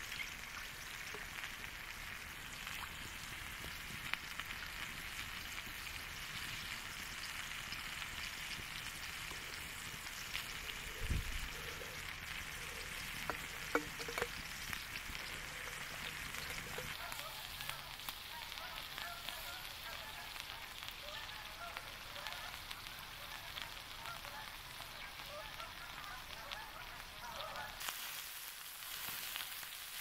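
Kale, carrots and venison heart frying in a pan over a campfire: a steady sizzle with occasional sharp pops.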